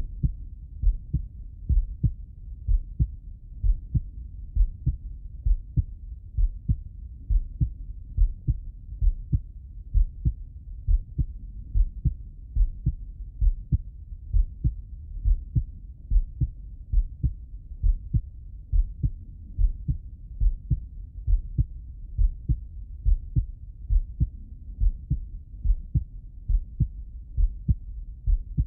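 A man's heartbeat heard through the bell of a stethoscope pressed to the chest: a steady, regular run of low, dull thumps at about one beat a second.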